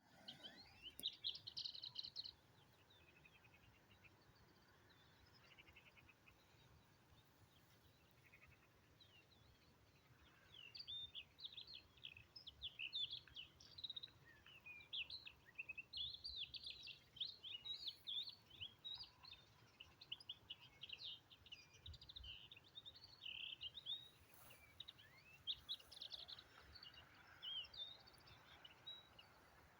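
Songbirds chirping and singing in quick, high, twittering notes. There is a brief burst about a second in, then a lull, then near-continuous chirping from about ten seconds on.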